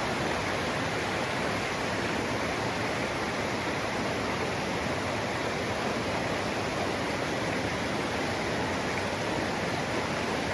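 Rushing river water, a steady, even rush with no breaks.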